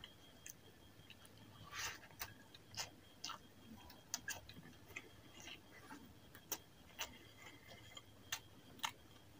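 Close-up wet mouth clicks and smacks from chewing a mouthful of rice and chicken curry, along with the squish of a hand squeezing the curry-soaked rice, in irregular sharp ticks a few times a second.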